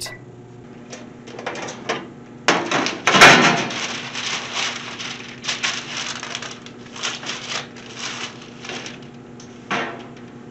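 Parchment paper rustling and crinkling as it is spread and smoothed over metal baking sheets, in a series of short rustles with a louder stretch about three seconds in.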